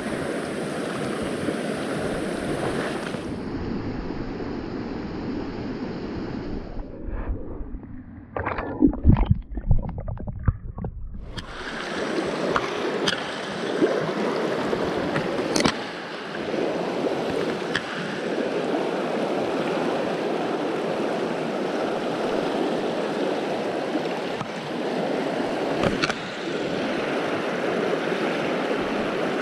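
River water flowing and rushing steadily over its bed. About eight to eleven seconds in, a cluster of loud low thumps and bumps breaks in.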